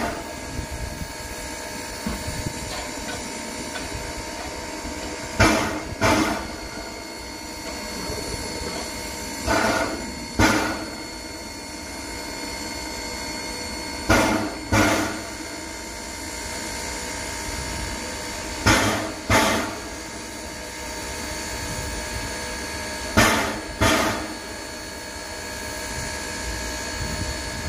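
A 4-4-0 steam locomotive standing under steam, with a steady hiss and a double puff of exhaust about every four and a half seconds.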